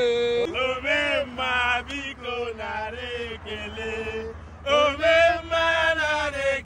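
Men's voices chanting and singing together in celebration, with long held notes; they drop a little in the middle and come back louder near the end. A steady low hum runs underneath.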